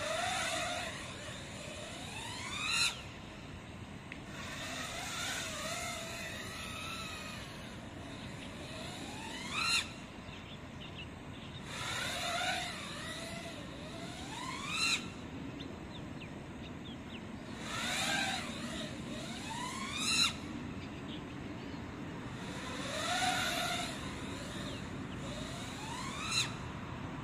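A GEPRC Mark5 five-inch FPV freestyle quadcopter's brushless motors and propellers whining in flight. Five times, about every five to six seconds, the whine rises steeply in pitch to a loud peak and cuts off abruptly, as the throttle is punched and chopped for flips and power loops. Softer, wavering whines come in between.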